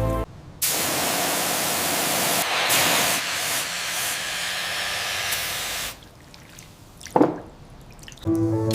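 A steady hissing spray runs for about five seconds, then cuts off. A single short, sharp sound follows about seven seconds in.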